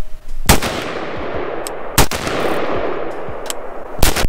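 Three rifle shots from an AR-15 style rifle, about a second and a half to two seconds apart, each followed by a long rolling echo that fades out.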